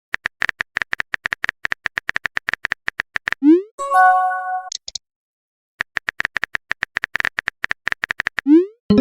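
Chat-app sound effects: a run of rapid typing clicks, a short rising swoop, then a brief chime. Another run of typing clicks follows and ends in another rising swoop.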